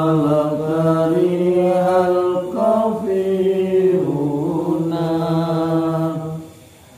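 A man's voice chanting in long held notes that step up and down in pitch, stopping a little after six seconds in.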